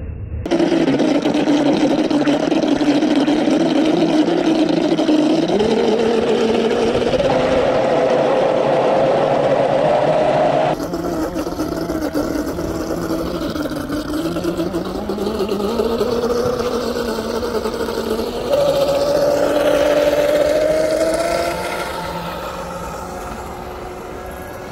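Radio-controlled model's motor running, its pitch rising and falling with the throttle, broken by abrupt cuts.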